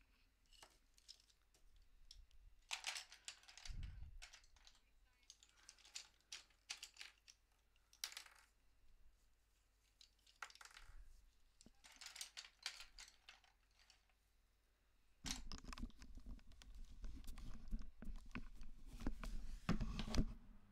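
Clicks, taps and short scrapes of small objects being handled on a desk, with a dull thump about four seconds in; the handling grows denser and louder about fifteen seconds in.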